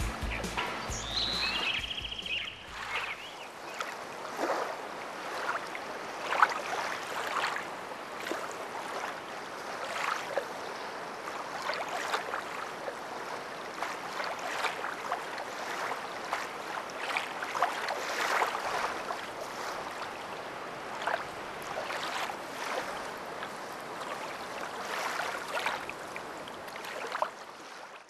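Background music ending about three seconds in, followed by a steady wash of water with irregular splashes and surges, like small sea waves lapping on a beach.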